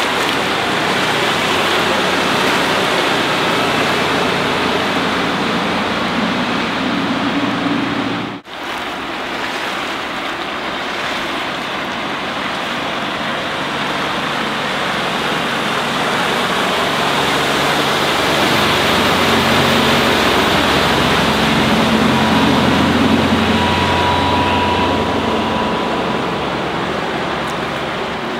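Volvo Penta D3-190 diesel stern-drive motorboat running past at speed, its engine hum swelling and fading under a steady loud rush of water and wind noise. There is a brief dropout about eight seconds in.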